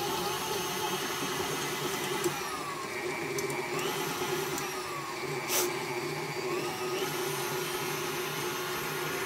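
KitchenAid Artisan stand mixer motor running as it mixes cookie dough. Its pitch drops and comes back up twice, as the speed is turned down and up again. A single knock comes a little past halfway.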